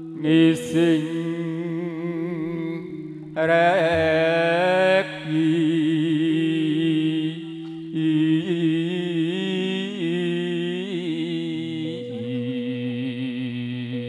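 Campursari music: steady sustained keyboard chords and bass notes stepping from one pitch to the next, under a slow, wavering melody line with heavy vibrato and ornaments.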